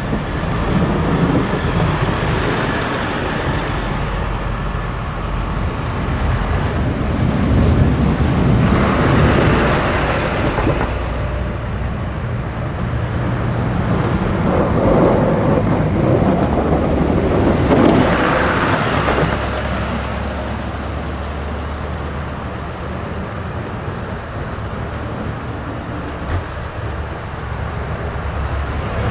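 Snow plow trucks passing with diesel engines running and front plow blades pushing snow along the road, the engine rumble and hiss of snow and blade swelling twice as trucks come by.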